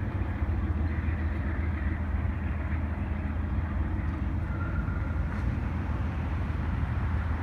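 Amtrak passenger train with its diesel locomotive running, a steady low drone and rumble.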